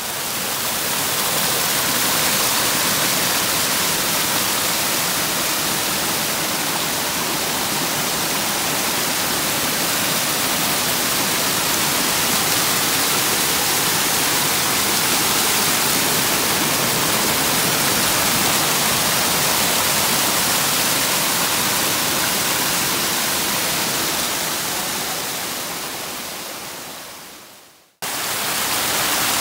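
Waterfall pouring over rocks: a steady rushing of falling water. It fades in over the first two seconds, fades out near the end, then starts again abruptly.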